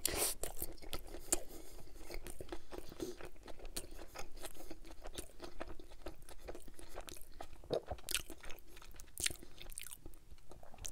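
Close-miked bite into a sesame-bun burger with lettuce, followed by continuous wet chewing with many small crunches and mouth clicks.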